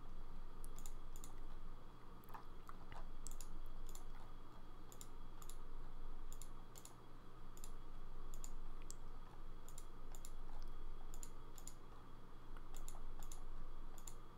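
A computer mouse clicking again and again, many sharp clicks in quick pairs a second or so apart, over a faint low steady hum.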